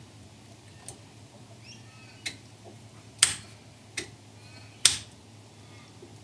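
Four sharp clicks from handling and fitting a dashboard switch and its dash nut. The loudest comes about three seconds in and another just before five seconds.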